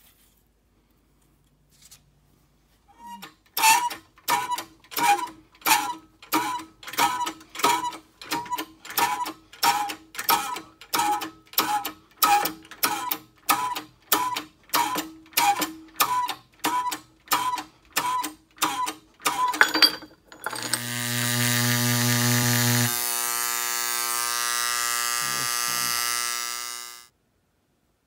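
Shop press pushing a helical gear off a transmission cluster shaft: the press is worked in steady strokes, about two a second, each a squeaky click, with the loudest stroke near the end of the pumping. Then a steady buzzing run with a hiss for about six seconds, which cuts off suddenly.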